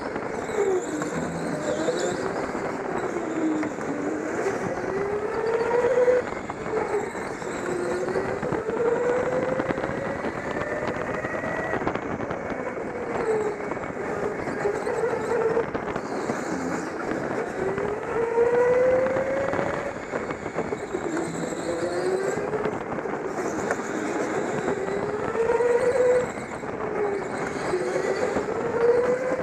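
Go-kart motor running under the driver, its pitch repeatedly rising as it speeds up and dropping back off, every few seconds.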